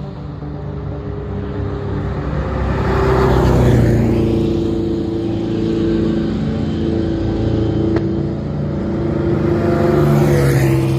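Classic car engine running and accelerating; the note swells over the first few seconds, then holds strong.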